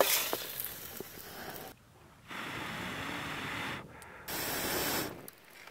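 A piece of beef laid into a hot pan of olive oil, sizzling at once as it hits the pan. The sizzle comes in three stretches, broken by two short silences.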